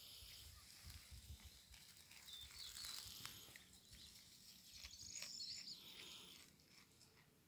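Faint rustling and crackling of a goat grazing close by, tearing at weeds and dry stems, scattered soft clicks over a near-silent background.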